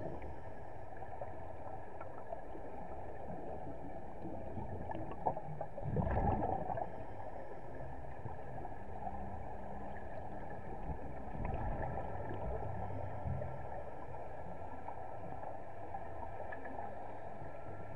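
Steady underwater ambience as heard through a diver's camera: a muffled, even rush with faint steady tones above it. About six seconds in comes a louder gush of scuba exhaust bubbles from a regulator, with a smaller one near the middle.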